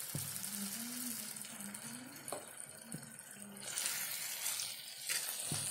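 Thick tomato masala sizzling in a kadhai while a wooden spatula stirs and scrapes through it, with a few sharp knocks of the spatula against the pan.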